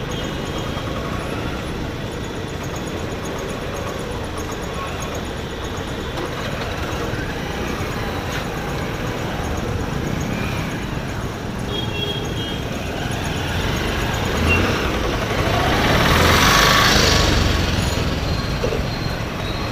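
Busy street traffic heard from a moving two-wheeler: motorbike and scooter engines running with road noise. A louder rush of noise swells and fades about sixteen to eighteen seconds in.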